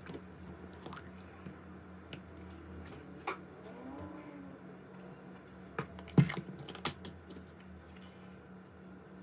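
Scattered clicks and taps of a honey jar and a plastic squeeze bottle being handled while their lids and seals are picked at and opened, the sharpest click about six seconds in, over a steady low hum.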